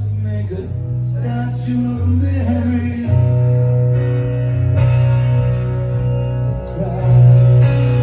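Live rock song played on acoustic guitar and electric bass, the bass notes heavy and changing about once a second under the strummed guitar.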